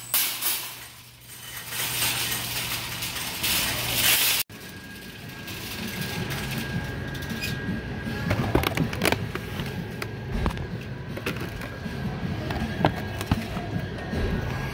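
About four seconds of loud, steady hiss-like noise, cut off suddenly, followed by background music with scattered clicks.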